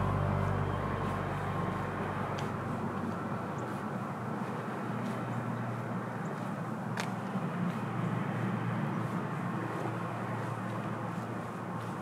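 Background music fading out over the first few seconds, leaving outdoor city ambience: a steady wash of traffic noise with a few faint clicks.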